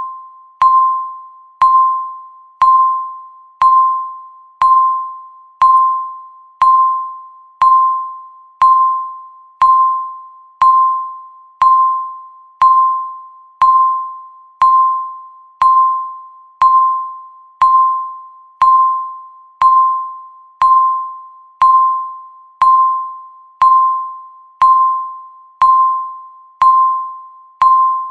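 Countdown timer beep marking each second: one short electronic ping at the same pitch about once a second, each starting sharply and fading away before the next.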